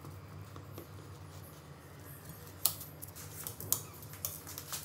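Knife slicing through a chilled tiramisu cake, with light scraping and a few sharp clicks, the loudest about two and a half and three and a half seconds in.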